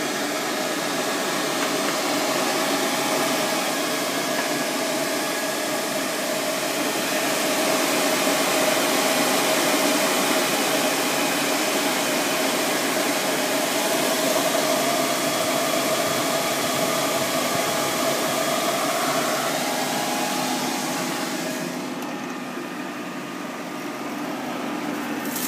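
Outdoor telecom cabinet's air-conditioning unit and cooling fans running: a steady whirring rush with a faint hum in it. The hiss drops away a few seconds before the end.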